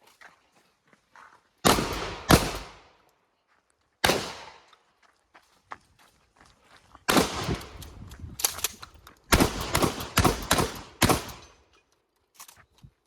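Shotgun shots fired in a string: two about two seconds in, one more at about four seconds, then a quicker run of about six shots between seven and eleven seconds, each with a short echoing tail.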